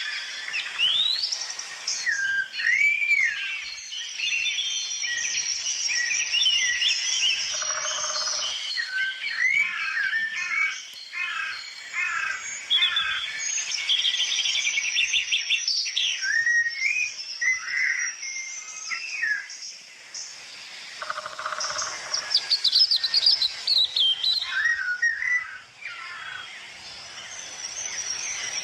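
Several birds singing at once: a dense, overlapping mix of whistled phrases, chirps and fast trills.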